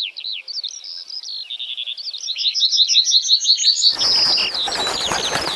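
Small birds chirping and twittering in quick, repeated high notes. About four seconds in, a louder, rougher noise starts suddenly under the chirping.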